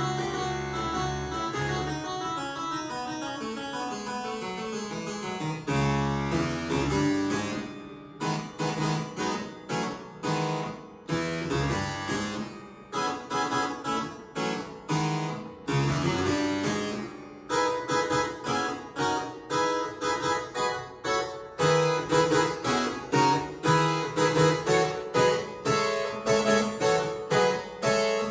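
Two-manual harpsichord playing a blues piece: held chords at first, then a run of quickly decaying plucked notes and chords at a steady beat.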